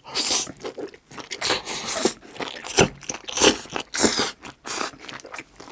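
Close-up chewing and crunching of a mouthful of stir-fried seaweed stems, in a run of irregular bites.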